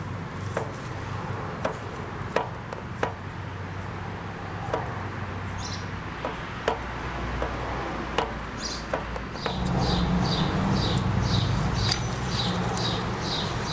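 Scattered small clicks and taps of handwork as the freshly riveted master-link pins on a motorcycle chain are cleaned up, over a low steady hum. From about two-thirds in, a bird chirps repeatedly, roughly twice a second.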